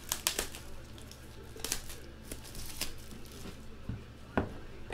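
Rustling and crinkling of a sealed trading-card box's packaging as it is picked up and handled: several short rustles about a second apart, then a couple of light knocks against the table near the end.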